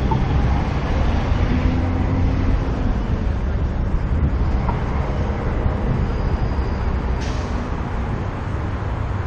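Steady low rumble of outdoor city ambience with road traffic.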